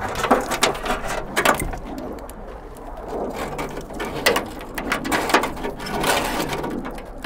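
A wiring harness in its ribbed plastic loom being pulled through holes in a Honda Civic's sheet-metal trunk lid. The loom and its plastic connectors scrape and knock against the metal in irregular clicks and rustles.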